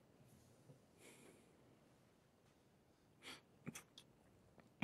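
Near silence, with faint breaths and, near the end, a few soft clicks as a man drinks down a small cup of wine.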